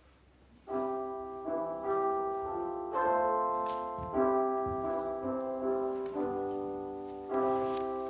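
Piano playing slow, sustained chords, starting less than a second in, each chord struck and then left to fade.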